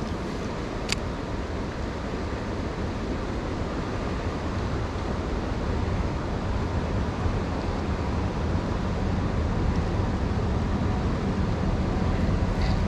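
Steady rushing noise of river water and wind on the microphone, growing slightly louder. There is one light click about a second in.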